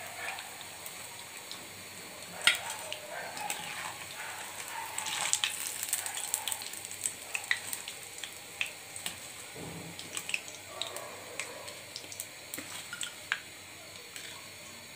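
Hot oil in an iron karahi sizzling and crackling as fried cauliflower pakoras are lifted out with a metal slotted spoon. Sharp pops and clicks are scattered through the steady sizzle, the loudest about two and a half seconds in.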